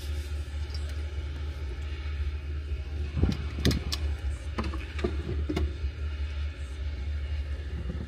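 Steady low engine rumble of a combine and tractor running while the combine unloads corn into a grain cart, with a cluster of sharp clicks and knocks between about three and five and a half seconds in.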